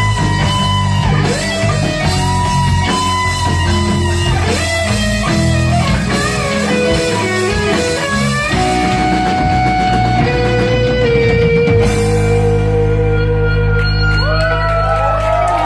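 Rock music, an instrumental passage led by guitar over bass; about three-quarters of the way through it settles into long held chords.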